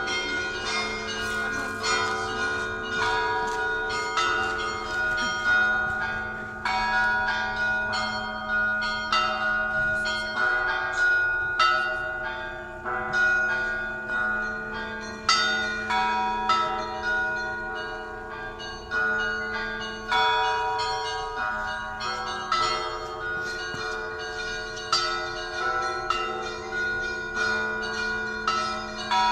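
Russian Orthodox church bells rung in a continuous peal: quick, tightly spaced strikes of smaller bells ring out over the long, steady hum of a larger bell.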